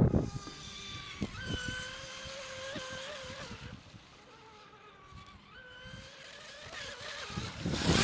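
Electric RC Mono 1 race boat running on the water, the high whine of its brushless motor holding a fairly steady pitch with small rises and dips. It fades to its faintest a little past the middle, then swells into a loud rushing pass near the end.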